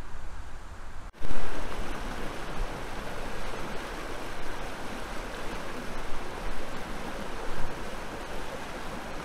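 A steady rush of churning water flowing out from under a canal bridge, starting abruptly about a second in.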